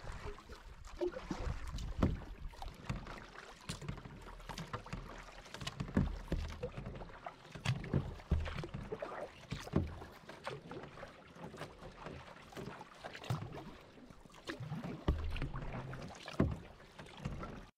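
Canoe being paddled: paddle strokes through the water with splashes and drips along the hull, coming every couple of seconds.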